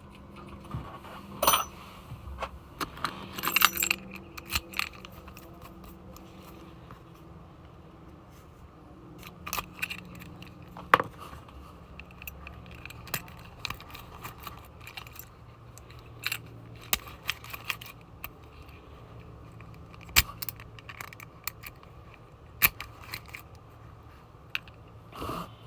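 Small metal lock parts and a key clicking and clinking irregularly as a Schlage pin tumbler cylinder is handled during rekeying, with clusters of quick taps and a few sharper clicks.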